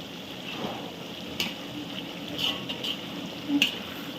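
Onions and dried red chillies frying in hot oil in a large pot: a steady sizzle with a few sharp clicks.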